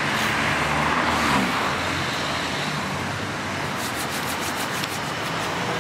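Road traffic passing on a busy street: a steady wash of tyre and engine noise, with one vehicle's engine drone falling in pitch as it goes by about a second in. A short run of light clicks comes about four seconds in.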